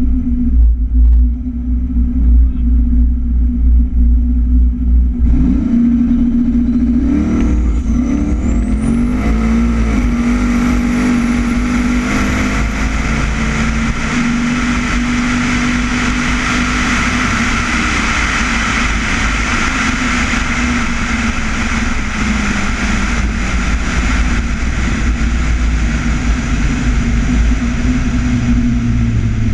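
Turbocharged LS-based V8 of a Fox-body Mustang drag car running at the line, then launching about five seconds in: the engine note climbs and a turbo whistle rises quickly to a high, steady whine as the car runs hard down the strip.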